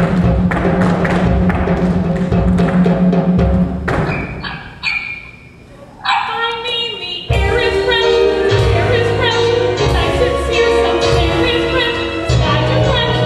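Live musical-theatre accompaniment with heavy drum and timpani hits, falling quiet for about two seconds. The full accompaniment returns about seven seconds in, with a voice singing over it.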